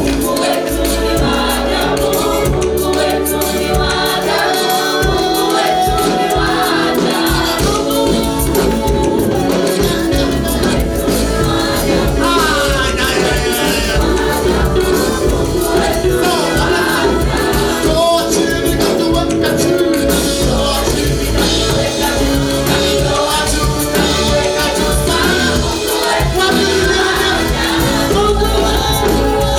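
Gospel praise music: several voices singing together over band accompaniment, at an even, full loudness throughout.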